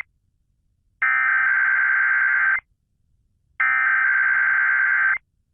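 Emergency Alert System SAME header data bursts: harsh electronic buzzing tones, two bursts of about a second and a half each with a second of silence between them. They are the repeated digital header that opens a second EAS test from the radio station.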